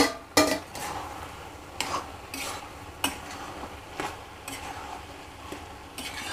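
Grated carrots simmering in milk in a kadai, stirred with a steel spatula. The spatula scrapes and knocks against the pan about once a second over a steady sizzle, with a louder metal clank about half a second in.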